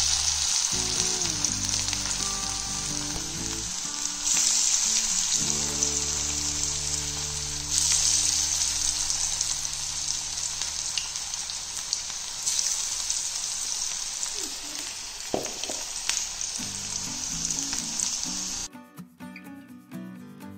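Chicken pakoda batter deep-frying in hot coconut oil: a loud, dense sizzle that surges louder several times, then drops away sharply near the end.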